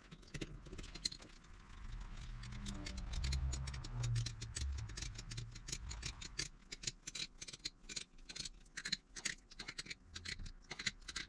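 Metal wrench working a brass reusable hydraulic hose fitting clamped in a bench vise: a rapid run of small metallic clicks, densest in the second half, with some dull handling knocks.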